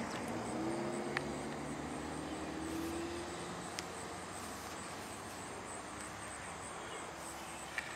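Quiet outdoor ambience with a faint, distant engine hum that rises slightly in pitch over the first few seconds, and a couple of light clicks.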